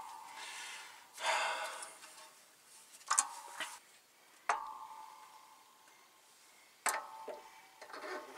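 Metal clanks and a scrape as a heavy truck clutch pressure plate is handled up onto the flywheel and alignment shaft. There is a scraping noise about a second in, then a few sharp knocks. The knocks about four and a half and seven seconds in ring briefly like struck metal.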